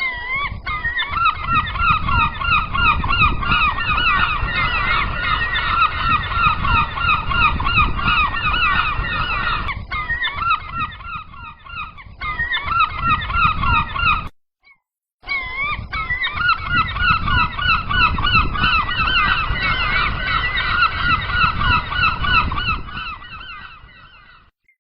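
A flock of gulls calling: many loud, overlapping wavering cries over a low rumbling background. The sound breaks off for about a second midway, then resumes.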